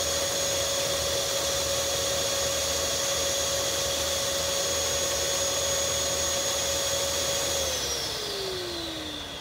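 Oase PondoVac Classic pond vacuum motor running with a steady whine, then switching off about three-quarters of the way through and spinning down, its pitch falling. The PondoVac Classic stops like this when its collection chamber fills, to drain before suction resumes.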